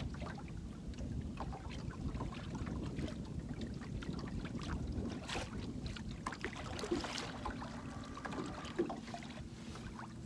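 Fishing boat moving slowly on a lake at trolling speed: a steady low rumble of water and wind against the hull, with scattered light clicks and knocks.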